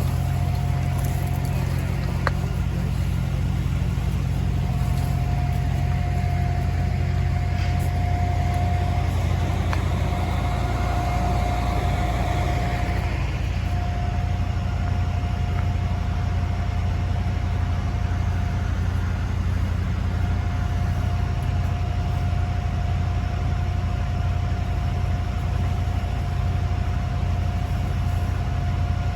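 Heavy diesel equipment engine running steadily at a low idle-like hum, with a thin high whine that drops out briefly a few times.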